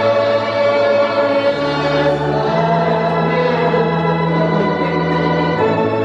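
Gospel hymn: a man singing into a microphone over sustained electronic organ chords, the bass note changing about a second and a half in and again near the end.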